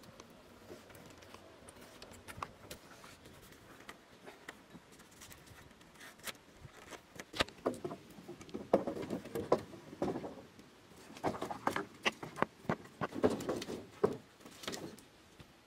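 Irregular knocks, clicks and rustles of wooden poles being handled and climbed on a rope-lashed pole frame, sparse at first and growing busier and louder about halfway in.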